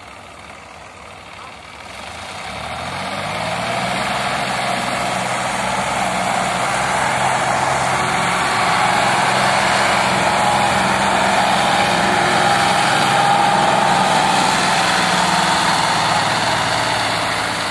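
Farm tractor's diesel engine pulling a loaded sand trolley up a slope. It grows louder from about two seconds in, then holds a steady drone.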